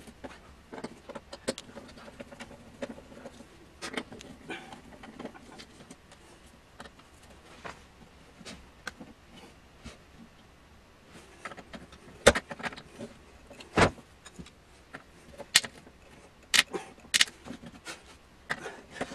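Scattered metal clicks and clinks of a screwdriver and screws being worked out of a steel power-supply chassis, with several louder sharp knocks in the second half.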